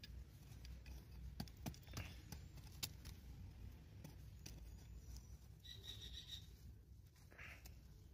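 Near silence: faint, scattered small clicks over a low background hum, with a brief faint high tone about six seconds in.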